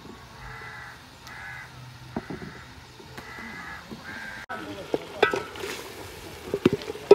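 Crows cawing in a repeated series of short calls. About four and a half seconds in, a spatula starts stirring vegetables in a large metal cooking pot, knocking and scraping against the pot's sides.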